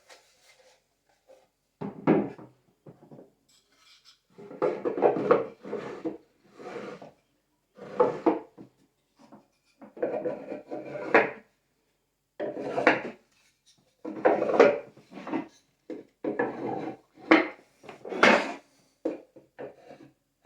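Wooden parts of a bandsaw box made of acacia and Gleditsia (honey locust) wood knocking and sliding against each other as it is handled. The sound comes in bursts of about a second with short pauses between them.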